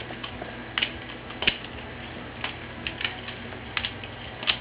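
Butterfly knife being flipped: its handles clack against each other and the blade in light, irregular clicks, about eight in a few seconds.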